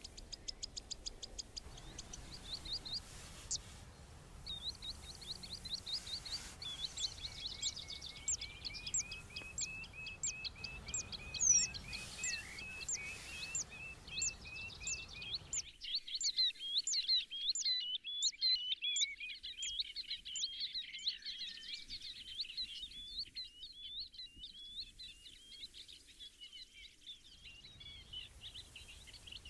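Small birds singing and twittering in a dense run of rapid, high chirps that goes on almost without a break, over a low background rumble that drops away about sixteen seconds in.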